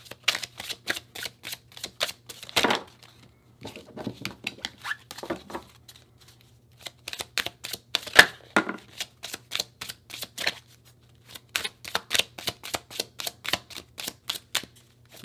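A deck of Romance Angels oracle cards being shuffled by hand: quick runs of soft card clicks, about four or five a second, pausing briefly twice.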